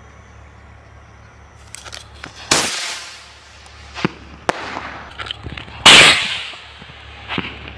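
Firework rocket going off after remote-controlled ignition: scattered crackles and pops, a loud hissing burst about two and a half seconds in, and a louder one about six seconds in that fades slowly.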